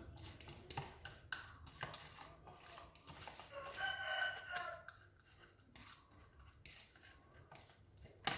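A rooster crowing once in the background, a single drawn-out call of about a second and a half starting a little past the middle. Scattered light clicks and knocks run around it.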